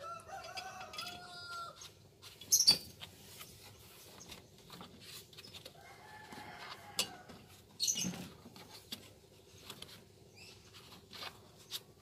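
A rooster crows twice, one long call at the start and a shorter one about six seconds in. Sharp knocks and clatter from hands handling metal parts and tools come in between, the loudest a little over two seconds in.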